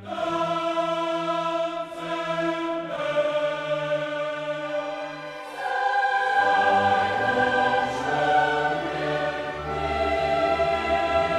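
Background music: a choir singing sustained chords with orchestral accompaniment, growing fuller and louder about six seconds in.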